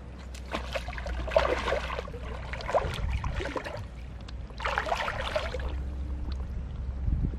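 River water sloshing and gurgling around a person wading waist-deep, in irregular splashy bursts with a short lull in the middle, over a steady low hum.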